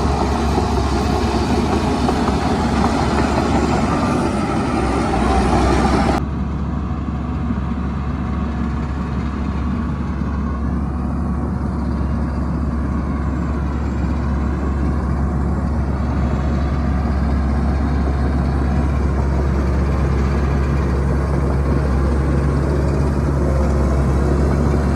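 Heavy diesel engine of earthmoving machinery running steadily with a low hum. About six seconds in the sound changes abruptly, the higher-pitched noise dropping away while the engine hum carries on.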